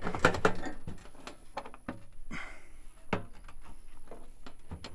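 Sheet-metal lid of a pond fish feeder rattling and clicking as it is worked open by its handle: a quick cluster of metallic knocks at first, then scattered single clicks.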